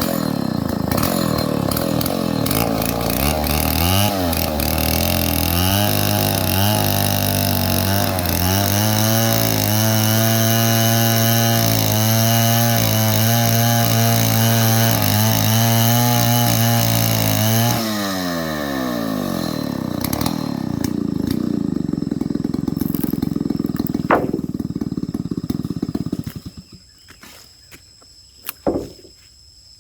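Stihl 070 two-stroke chainsaw revved up and held at high revs for about eight seconds, then dropping back to idle. It idles for several seconds and is shut off about 26 seconds in, followed by a couple of short knocks.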